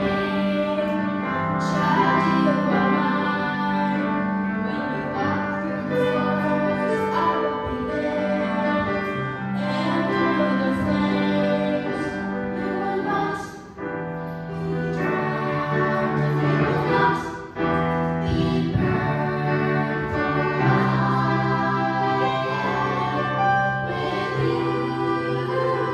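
A group of voices singing a worship song over instrumental accompaniment, with held bass notes that change every second or two.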